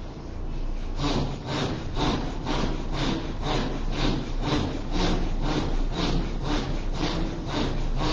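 Rhythmic forceful breathing during a dhikr practice, harsh rasping breaths at an even pace of about two a second, starting about a second in over a steady low hum.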